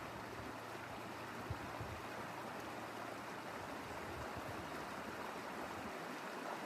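Stream water rushing over rocks, a steady even hiss.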